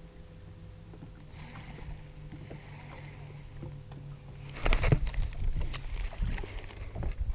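A steady low hum on a bass boat, then about two-thirds of the way in, loud rubbing and bumping close to the microphone as hands work the fishing line and baitcasting reel in front of the camera.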